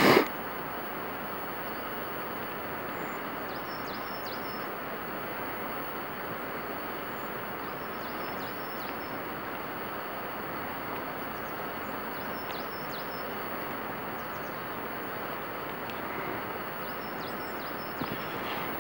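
Steady rushing outdoor background noise, with a small bird singing short, repeated phrases about every four seconds. A brief loud bump right at the start.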